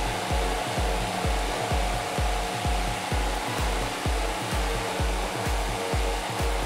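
Electric fan running with a steady whooshing air noise, over background music with a steady beat.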